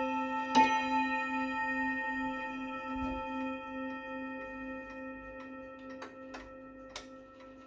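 Brass bell on an ODO striking wall clock, struck once about half a second in by the clock's automaton figure, then ringing on with a long, slowly fading tone. A few light clicks come near the end.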